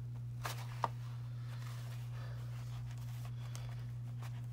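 Faint handling of a paper journal and its lace trim: two light ticks, then soft rustling, over a steady low hum.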